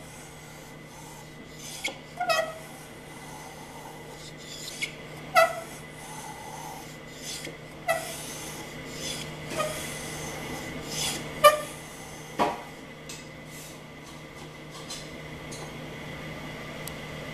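A Record No. 311 cast-iron shoulder plane taking shavings along a rabbet in wood: a string of short scraping cutting strokes, roughly one every second or two, that thin out near the end.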